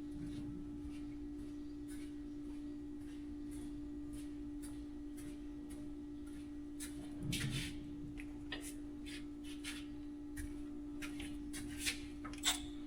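A steady, even hum, with scattered faint clicks and clinks and a soft knock about seven seconds in.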